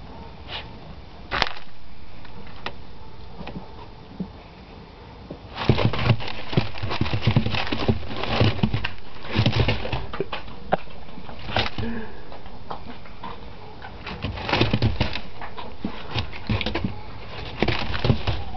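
Rat terrier puppy scrabbling and pouncing through the corn in a corn bin while hunting a field mouse: rapid bursts of clattering and rustling, coming in repeated flurries from about five and a half seconds in, with one sharp click earlier.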